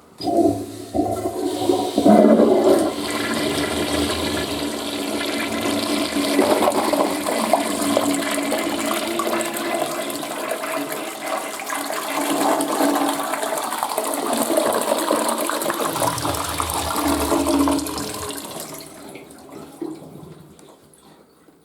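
Western-style toilet flushing: a sudden rush of water that stays strong and steady for most of the time, then tapers off and fades over the last few seconds.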